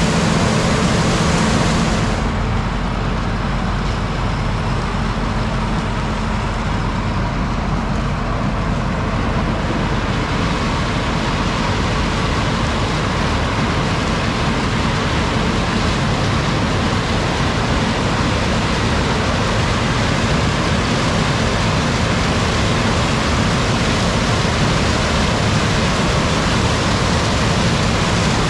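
Heavy farm harvest machinery running steadily, a loud even drone. About two seconds in the higher hiss drops away, then builds back up over the next several seconds.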